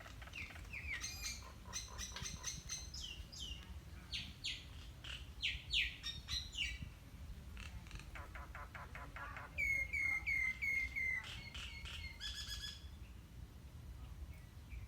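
Small birds chirping, a quick run of varied short chirps and sweeping notes. About ten seconds in comes a string of five evenly spaced falling notes, the loudest part, followed by a few more chirps.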